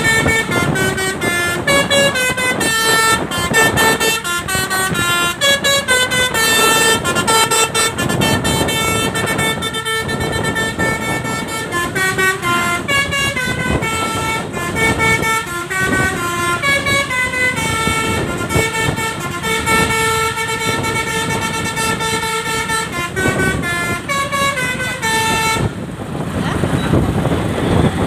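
Basuri 'telolet' multi-tone bus horn playing a tune in quick stepped horn notes, over a low rumble. The melody stops about 26 seconds in.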